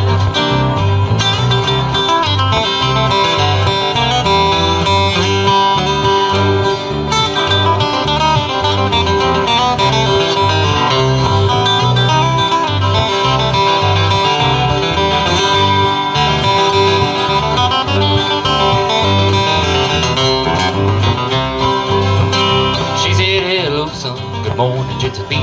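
Live band of acoustic guitars playing an instrumental break in a country song, strummed chords over a steady bass pulse, with no singing.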